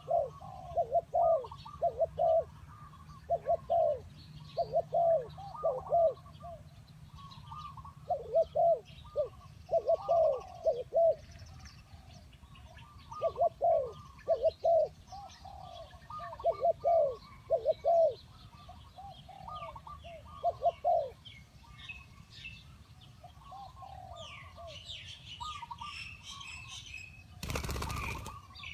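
Spotted doves cooing in repeated phrases of a few low, hoarse coos, with smaller birds chirping faintly behind. The cooing stops about three quarters of the way through, and a brief noisy burst comes near the end.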